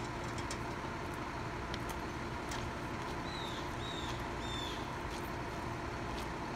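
Steady low mechanical hum and rumble, like an idling engine or running machinery, with a bird giving three short, quick falling chirps a little past the middle and a few faint knocks.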